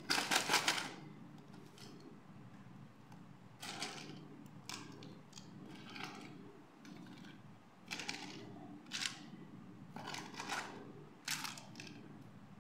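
Small plastic doll accessories (hair clips, brush, mirror, beaded necklace) clattering as they are lifted out of a cardboard box and set down on a hard surface. Irregular clicks and rattles, the loudest a rapid run of clicks in the first second.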